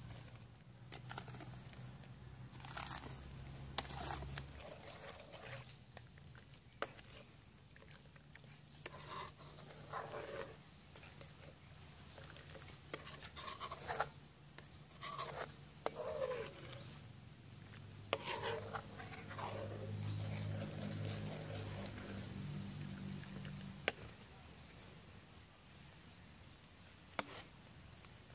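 A metal spoon scraping brown sugar out of a metal bowl and stirring coconut milk in a metal wok, with scattered sharp clinks of spoon against metal and short scrapes, over a faint low hum.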